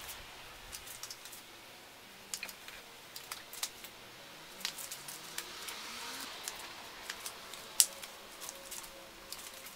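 Microfiber drying towel wiping wet car windows and paint: soft rubbing with scattered light clicks and taps, and one sharper click about 8 seconds in.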